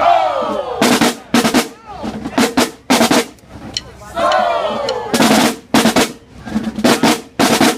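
Marching band drumline playing a cadence, with loud unison snare and bass drum hits at uneven spacing. Between the hits, a crowd yells and cheers.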